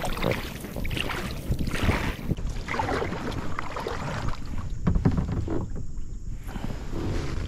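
Water splashing and sloshing around a kayak in repeated surges about a second apart, over a low wind rumble on the microphone.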